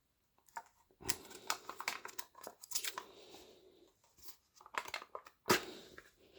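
Crinkling and rustling of packaging being handled, with irregular small clicks and taps and a sharper knock about five and a half seconds in.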